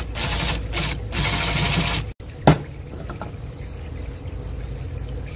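Makita cordless drill with a 5/16 bit running in three short bursts over the first two seconds, drilling fiberglass out of an arrow shaft held in a vise. A single sharp click follows about two and a half seconds in, with a few faint clicks just after.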